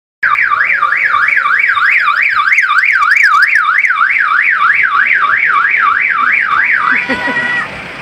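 Electronic siren horn of an odong-odong tourist road train, one tone sweeping up and down about two and a half times a second, cutting off about seven seconds in.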